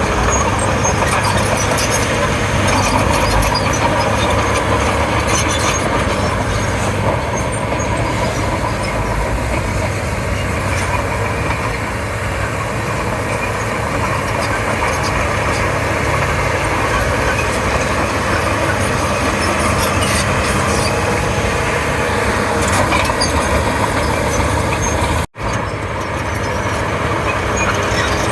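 Komatsu D31P crawler bulldozer's diesel engine running steadily under load as it works, with a sudden momentary gap about three-quarters of the way through.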